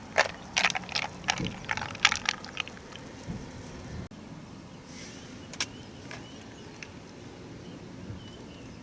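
A quick run of sharp clicks and knocks for about three seconds, like objects being handled, then a quieter stretch with a few single clicks and faint high chirps.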